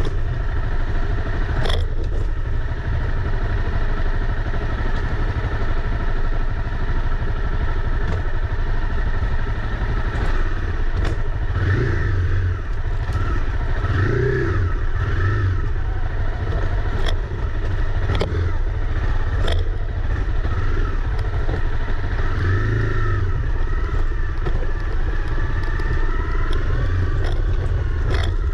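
Honda CRF250 Rally's single-cylinder four-stroke engine running as the motorcycle is ridden slowly along a rough dirt trail. The pitch rises and falls with the throttle a few times. Scattered sharp knocks and clatter come as the bike jolts over bumps.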